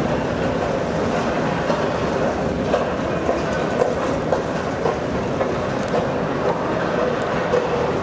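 1972 Eggers-Kehrhahn escalator running: a steady mechanical drone with small irregular clicks and clatter from the moving steps.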